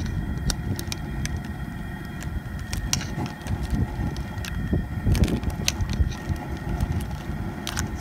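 A stockpot of blue crabs and shrimp at a rolling boil over an outdoor burner: a steady low rumble, with scattered sharp clicks and clinks of metal tongs knocking against the shells and the pot.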